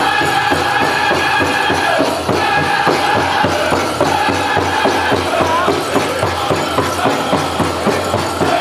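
Powwow drum group singing over a steady beat on a large shared drum, with the dancers' leg bells jingling. The singing fades about five seconds in, leaving mostly the drumbeat and bells.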